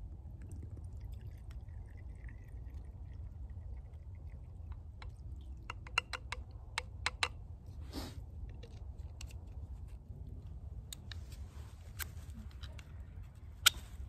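Scattered sharp clicks and light clinks of camping gear being handled, mostly in the second half, the loudest near the end, over a steady low rumble.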